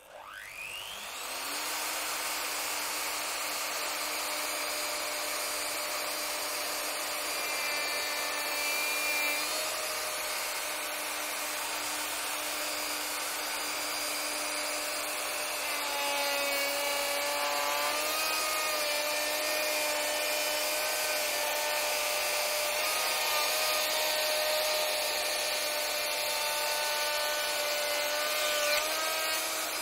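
Festool OF 2200 router spinning up with a rising whine, then running steadily as it mills a dovetail groove in a timber beam. Its pitch sags a little under cutting load around halfway through.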